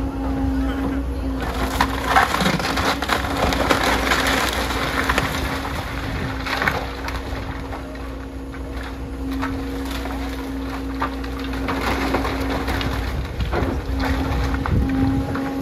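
Wood-frame house being torn apart by a CAT 325F hydraulic excavator: boards and framing cracking, splintering and crunching, heaviest in the first half, with scattered cracks later. Under it runs the excavator's steady engine hum.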